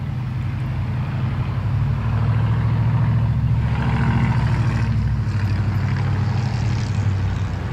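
Road traffic at an intersection: cars and an SUV drive past close by over a steady low engine rumble, loudest as one passes about four seconds in.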